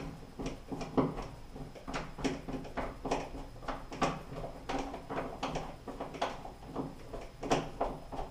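Hand screwdriver turning a screw in a metal towel-bar bracket against the wall, giving irregular clicks and scrapes about one or two a second.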